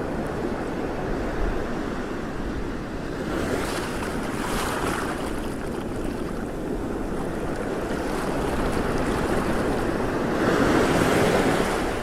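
Wind buffeting the microphone over a steady rush of water, swelling louder twice: about four seconds in and again near the end.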